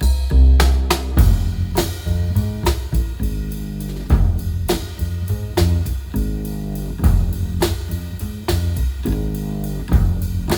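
An instrumental passage of a song, with a steady drum-kit beat, bass and guitar, playing through a homemade loudspeaker setup: a crude DIY planar-magnetic midrange panel with a separate tweeter and woofer.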